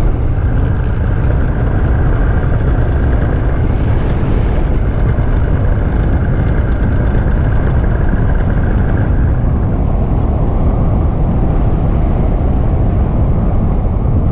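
Paramotor engine and propeller running steadily with wind rumbling on the microphone; about two-thirds of the way through the engine's pitch drops, as it is throttled back on the descent to land.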